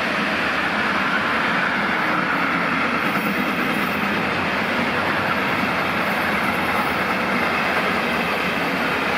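Passenger train passing at speed, a steady, loud rush of wheels on rail and air that holds even throughout.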